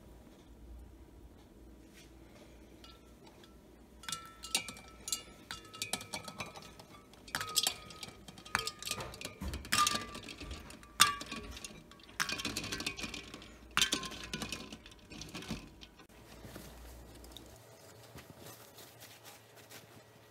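Hard-boiled eggs and ice cubes clinking against a stainless steel pot as the eggs go into an ice-water bath to cool before peeling. The clinks come in a string, each with a short metallic ring from the pot, starting about four seconds in and stopping around sixteen seconds.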